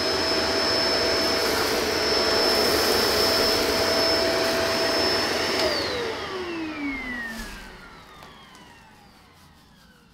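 Shark DuoClean Lift-Away UV850 upright vacuum running on its hard-floor setting: a steady high whine over the rush of air. About six seconds in it is switched off, and the motor winds down with a falling whine that fades over about two seconds.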